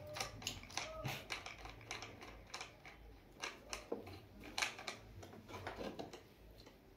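Faint, scattered clicks and taps of hands handling a particle-board corner shelf: fingers on the laminated board and on its metal posts and knob finials.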